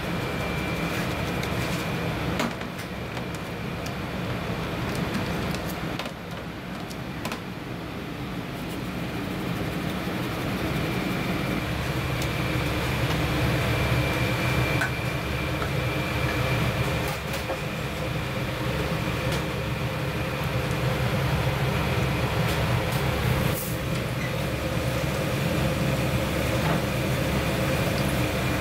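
Steady low mechanical rumble of a commercial kitchen, such as ventilation or kitchen equipment, with a faint steady high whine. The rumble grows heavier about twelve seconds in, and a few light clicks and knocks come from trays and fish being handled.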